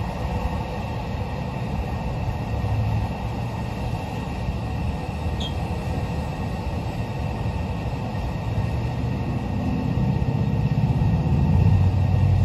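Steady low rumble that swells louder near the end.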